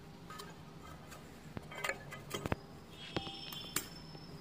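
Stainless steel tiffin box lid being fitted and pressed shut: a few light metallic clicks and taps, then a brief metallic ring about three seconds in.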